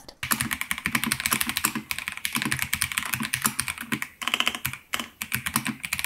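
Fast, continuous typing on a MIIIW BlackIO mechanical keyboard with linear Jellyfish switches: a dense run of key clicks, several strokes a second.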